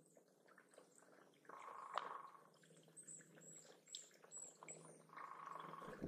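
Faint, very high, thin bird chirps: about eight short notes in quick succession through the middle. Soft water splashing from a small bird bathing in a shallow pond comes with them, and there is a small click about two seconds in.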